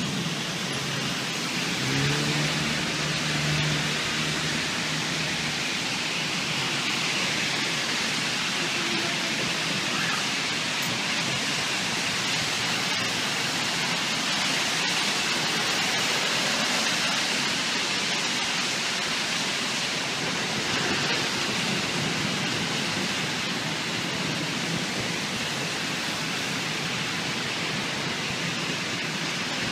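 Heavy rain pouring steadily in a summer thunderstorm: a dense, even hiss that holds at one level throughout.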